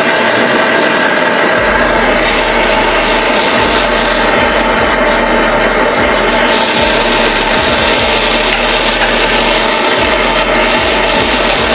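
Handheld gas torch flame roaring steadily while it heats a rusted, seized pulley bolt to break it loose.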